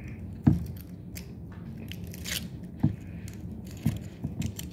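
Handling of a wrapped chocolate: a few soft knocks and a short crinkle of the wrapper a little after two seconds in.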